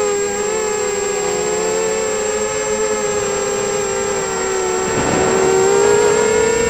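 Brushless motors and propellers of an FPV260 quadcopter whining, recorded by its onboard camera: several close tones that drift up and down together as the throttle changes, growing louder and rougher about five seconds in. A constant thin high tone sits above them.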